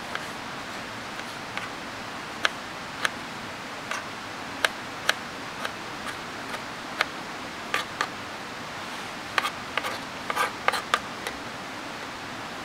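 Kitchen knife chopping tomato on a plastic cutting board: irregular sharp taps of the blade on the board, with a quicker flurry of taps about ten seconds in, over a steady hiss.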